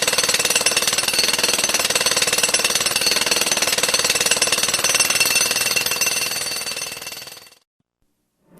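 Jackhammer hammering rapidly and steadily, then fading out and stopping about a second before the end.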